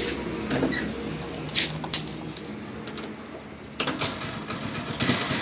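A few scattered clicks and knocks as a Hero Honda CD Deluxe motorcycle is handled at its fuel tank and handlebar. The sharpest click comes a little before two seconds in.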